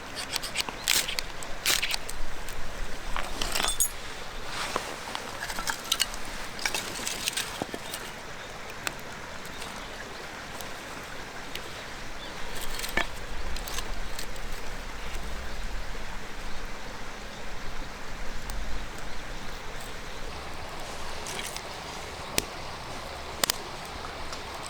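A small stream running steadily, with scattered sharp clicks and knocks over it, most of them in the first eight seconds.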